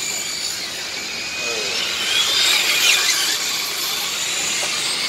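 Radio-controlled model racing trucks and cars running on the track, their small motors whining and revving, with a louder rise and fall in pitch as they pass about two to three seconds in.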